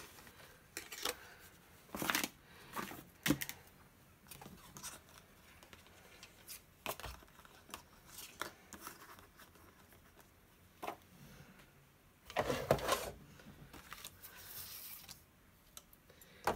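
Paper rustling and soft tearing as die-cut cardstock pieces are gently pulled free of their sheet, in scattered short bursts with a longer rustle about twelve seconds in.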